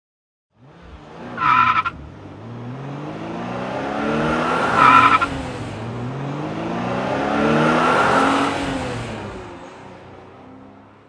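A car engine revving up and easing off as the car drives, with short tyre squeals about one and a half and five seconds in. It starts after a brief silence and fades away near the end.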